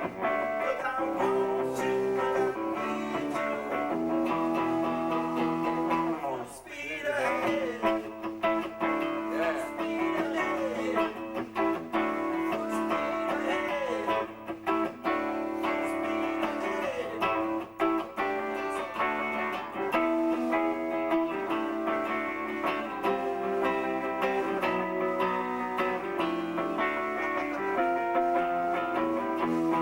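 Blues-rock played live with an electric guitar lead, held notes and several bent notes in the middle stretch, over a steady chordal backing.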